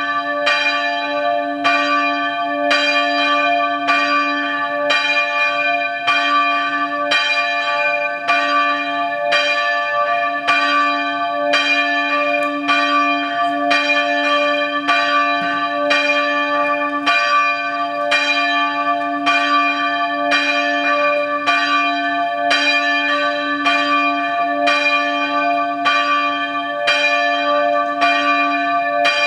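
Hakodate Motomachi Catholic Church's bell tolling, a single bell struck evenly about once a second, each stroke ringing on into the next over a steady low hum.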